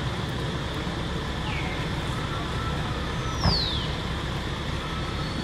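Steady outdoor background rumble and hiss with a faint steady buzz. Two falling whistled calls cut through it: a short one about one and a half seconds in, then a longer, higher one past the middle, with a single sharp knock as it sounds, the loudest moment.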